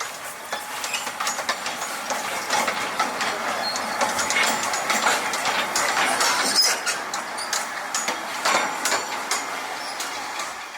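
Narrow-gauge steam locomotive Kč4-332 and its train running, with a steady rattle and many sharp clicks and clanks from the wheels and cars.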